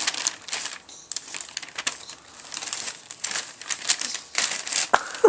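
Gift wrapping paper rustling and crinkling in quick, irregular crackles as small hands pull at a wrapped present.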